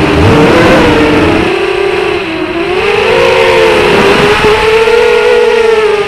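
FPV racing quadcopter's electric motors and propellers whining, the pitch rising and falling with the throttle and dipping lowest about two seconds in before climbing again.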